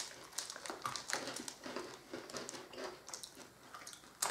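Several people biting and chewing thin strawberry-coated pretzel sticks: scattered small crisp crunches.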